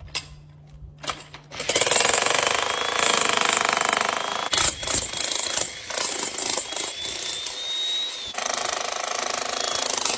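A 40-pound jackhammer breaking up the pool's edge. After a couple of knocks it starts up less than two seconds in and hammers loudly and continuously, with a brief pause near the middle.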